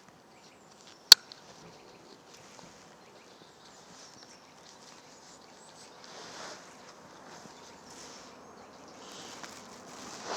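A single sharp click about a second in, then faint rustling and handling of recording gear over a quiet outdoor background.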